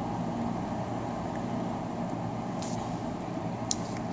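Two faint clicks of the plastic action-camera casing being pressed and handled, one past the middle and one near the end, over a steady low hum.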